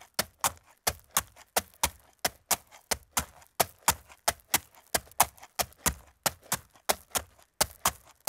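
Horse hooves clip-clopping at a walk on a hard road, a steady run of sharp clops about three a second.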